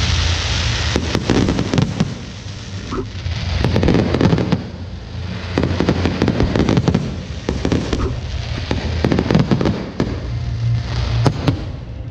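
Aerial fireworks bursting and crackling in repeated volleys, a fresh surge of dense crackle about every one and a half to two seconds.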